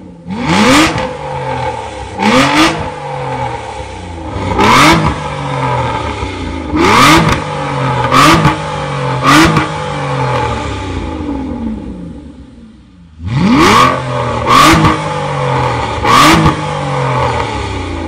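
Aston Martin Rapide S V12 through a Fi Exhaust valvetronic cat-back system, revved from idle in about nine quick throttle blips. Each rev rises sharply and falls back to idle, with a short pause about two-thirds through.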